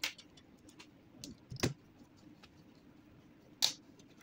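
Several short, sharp plastic clicks and knocks as laser-printer fuser-unit parts are handled and pressed into their slots, the loudest near the end, over a faint steady hum.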